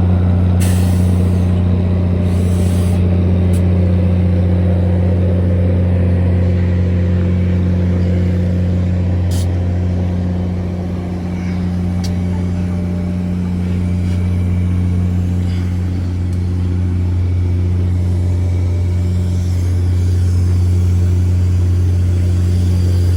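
Steady low rumble and hum of a moving passenger train, with a few faint clicks over it.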